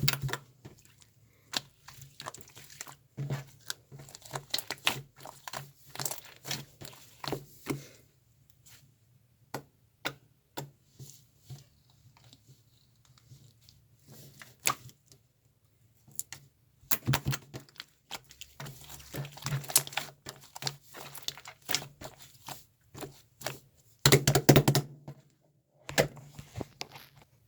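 Irregular crackling, crinkling and clicking from something being handled close to the microphone, in clusters with short pauses and a louder burst near the end.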